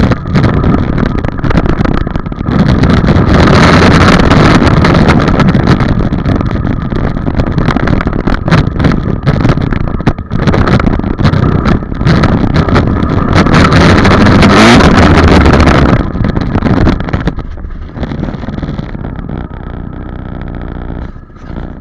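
Dirt bike engine ridden hard and very loud, close to the microphone and crackling with distortion, its pitch climbing about fourteen seconds in. About sixteen seconds in the throttle closes and the engine drops to a quieter low run as the bike slows.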